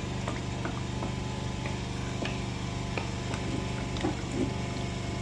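A spoon stirring a pot of fish pepper soup, with scattered light clicks and small liquid sounds, over a steady low hum.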